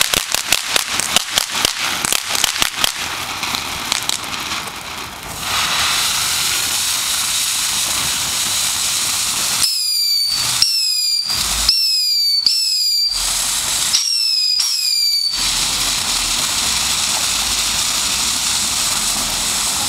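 Ground fountain firework spraying sparks: rapid crackling pops for the first four seconds, then a steady hiss. About ten seconds in comes a run of short high whistles, each falling in pitch, before the hiss carries on.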